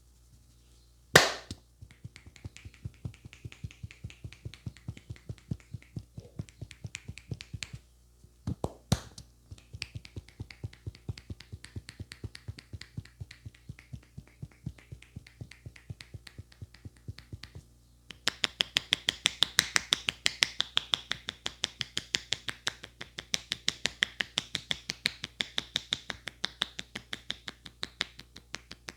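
Barber's hands tapping and slapping rapidly on a head during a head massage, about six strikes a second, louder and sharper in the last third. A single sharp snap about a second in is the loudest sound.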